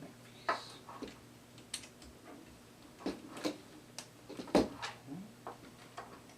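Handling clicks and knocks of a plastic and die-cast robot figure's parts being fitted together, about nine separate clicks spread irregularly, the loudest about four and a half seconds in.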